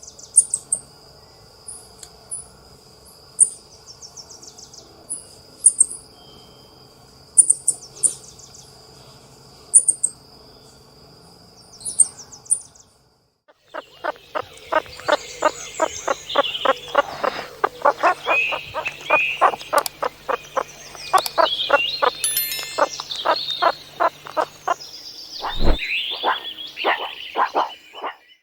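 Birds chirping, short high calls every second or two over a steady high insect drone. After a brief gap, a dense, fast run of animal calls, about three a second, with higher gliding calls over them.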